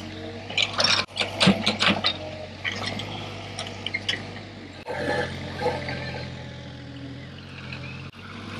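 Small wheeled excavator's engine running steadily while its bucket digs into turf and soil, with clanks and rattles from the bucket and arm, thickest in the first two seconds.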